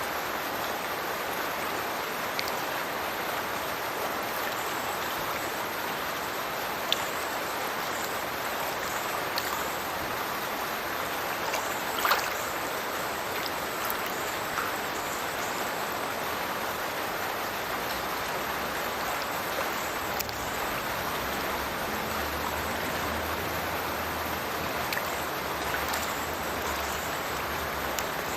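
The Stirches Burn pouring from its culvert into the River Teviot: a steady rush of falling, splashing water, with a few brief louder splashes and drips. A faint low hum joins in for the last several seconds.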